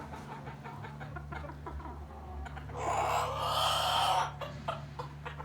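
Backyard chickens clucking, with one louder, harsh call lasting over a second around the middle. A steady low hum runs underneath.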